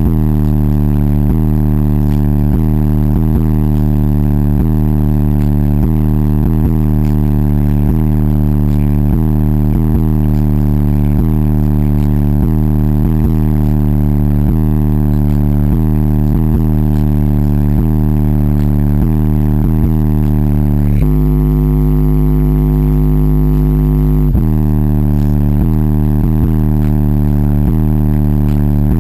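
A car-audio system of twelve 15-inch subwoofers in a large fourth-order bandpass box, playing a bass-heavy track loud, heard inside the vehicle's cabin. The deep bass line changes note about every two-thirds of a second. About three-quarters of the way through, one low note is held for about three seconds before the pattern resumes.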